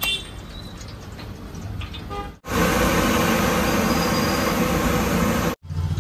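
A sharp click, then after a cut a commercial gas burner roaring loudly and steadily with its valve open.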